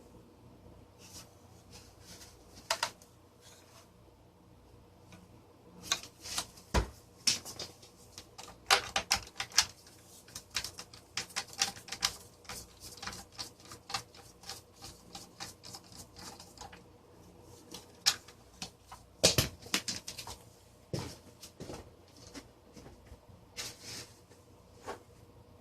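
Irregular clicks and taps of hard plastic parts being handled as a Vornado desk fan is taken apart, with a few louder knocks among them.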